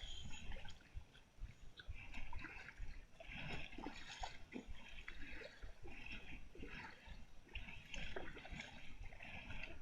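Kayak paddle strokes in sea water: the blade dipping and pulling through, with a soft splash about once a second and water dripping off the blade.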